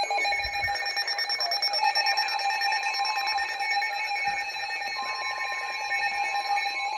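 Weather radio alert alarm: a loud, steady electronic tone that starts suddenly, with a second, slightly higher tone joining about five seconds in. It announces an incoming severe weather alert.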